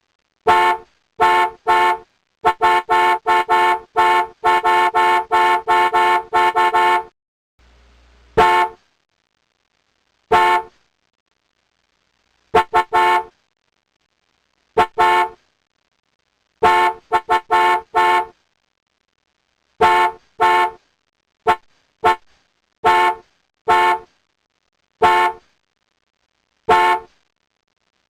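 Car horn honking in short beeps: a rapid run of quick taps for the first several seconds, then single and double honks a second or two apart, with dead silence between them.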